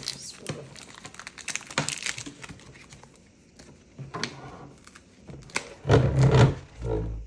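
Plastic parts and packaging being handled: scattered clicks, knocks and crinkling, then a loud low rumble near the end.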